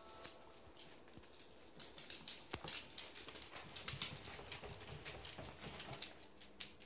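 A Shih Tzu's claws clicking on a wooden floor as it walks, a quick, irregular run of light clicks from about two seconds in.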